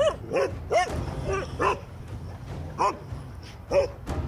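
Dogs barking in short, sharp barks, several in quick succession and then a few more spaced out. It is territorial barking aimed at driving off an intruding lizard.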